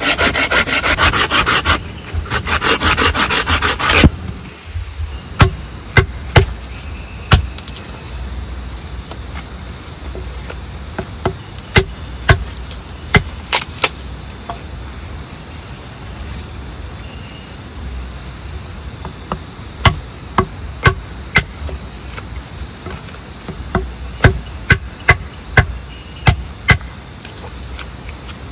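A hand saw cutting through a wooden branch in quick back-and-forth strokes, in two bursts with a short break, stopping about four seconds in. Then a hatchet chops the branch in single sharp knocks that come in small clusters.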